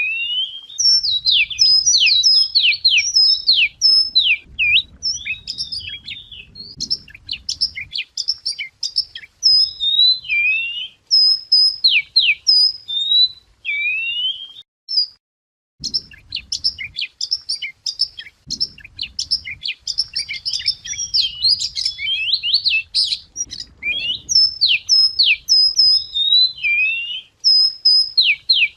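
Wagtail song, a lure recording: a fast, varied run of rising and falling whistled chirps and trills. It breaks off briefly about halfway, then starts again.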